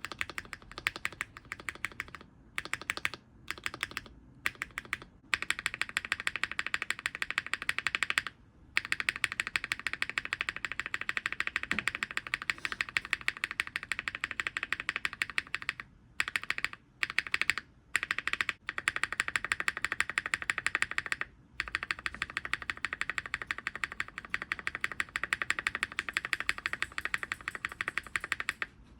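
Mechanical keyboard spacebar pressed rapidly over and over, in runs of quick clacks with short pauses, fitted in turn with lubed vintage Cherry MX Black, Mode Obscura and NovelKeys Cream switches.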